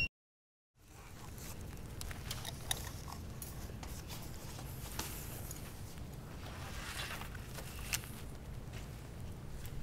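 Camera gear and a camera bag being handled: rustling, scraping and a few sharp clicks over a low, steady room hum, starting after a moment of silence.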